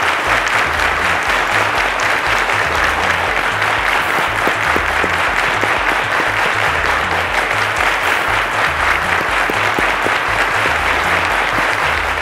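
Studio audience clapping steadily, a dense patter of many hands, over background music with a pulsing bass beat.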